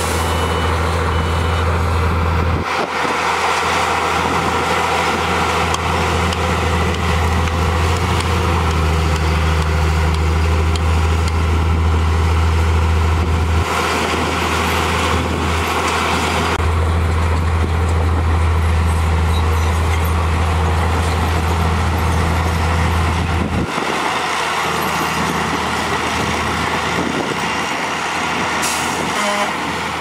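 Heavy diesel engines running with a steady low drone: a Hyundai dump truck whose reversing alarm beeps for the first couple of seconds, and a bulldozer pushing soil. The truck's engine runs on as its bed tips to dump soil.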